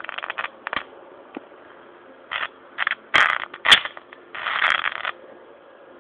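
Hydroxy (HHO) gas bubbles from an electrolysis cell igniting at a torch flame: an irregular run of sharp pops and short crackling bursts, the loudest around three to four seconds in, the longest near the end.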